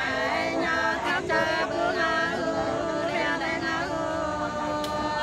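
Unaccompanied voices singing a Nùng sli folk song, holding long notes that slide between pitches.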